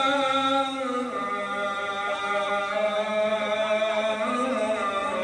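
Muezzin's call to prayer (adhan): a man's voice holding long, ornamented notes that echo and overlap. The pitch drops about a second in.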